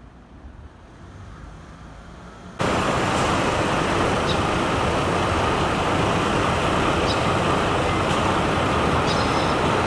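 Steady, loud rush of city traffic noise that starts abruptly about two and a half seconds in, with a few faint high ticks on top.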